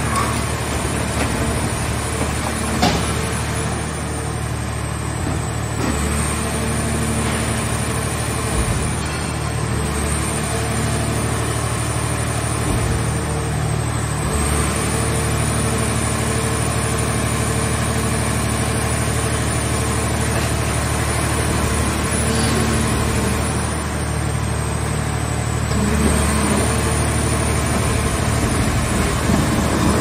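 Hydraulic power unit of a mobile car-body baler running steadily under load, with a high whine that dips in pitch four times as the press lid and rams are worked. A single knock about three seconds in.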